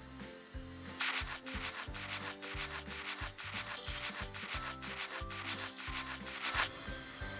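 A quick run of rubbing, brushing strokes, like a hand brushing flour off a cloth cap. It starts about a second in and stops shortly before the end, over background music with a steady bass pulse.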